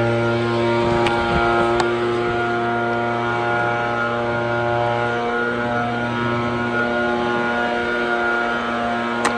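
A small gasoline engine running steadily at high speed, holding one even pitch, with a few light clicks over it.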